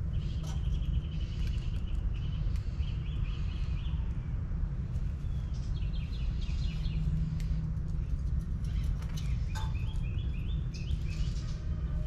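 Small birds chirping and calling in several bursts of quick repeated notes, over a steady low background rumble.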